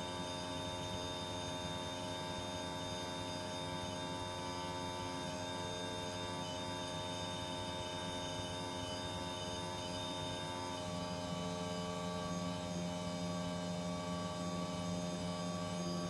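Outdoor unit of a Panasonic R410A split-system air conditioner running, a steady hum made of many fixed tones. About eleven seconds in, a low tone grows stronger and the sound gets a little louder.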